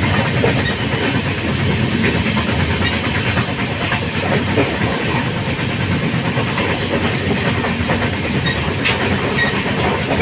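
Steady running noise of a moving passenger train, heard from inside the carriage: wheels on the track and the rattle of the coach.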